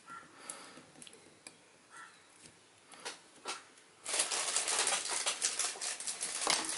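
Small hobby tools, tweezers and a scriber, handled on a cutting mat: a few scattered light clicks and taps, then from about four seconds a dense run of scratching and clicking, louder than before.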